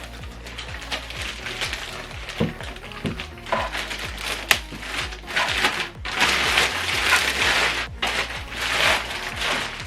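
Packaging being handled: plastic wrapping and packing material rustling and crinkling, with scattered light knocks and clicks, over steady background music. The rustling is heaviest in the second half.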